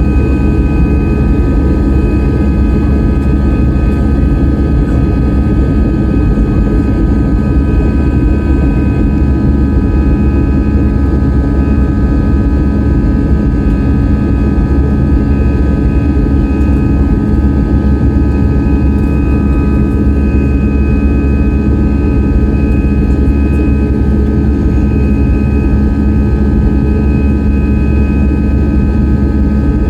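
Jet airliner's engines and airflow heard inside the passenger cabin: a loud, steady drone with several steady high whining tones over it.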